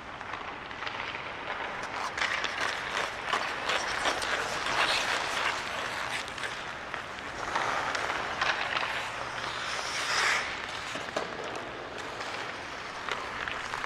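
Ice hockey skate blades scraping and carving on the ice in repeated swelling hisses, with sharp clicks of a stick on pucks.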